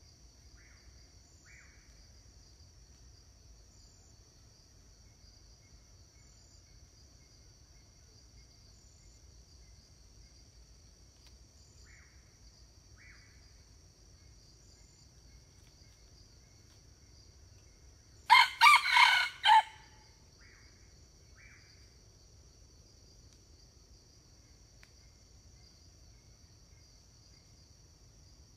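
Red junglefowl rooster crowing once, a short clipped crow of about a second and a half, about two-thirds of the way through. A steady high insect whine runs underneath, with a few faint short calls before and after the crow.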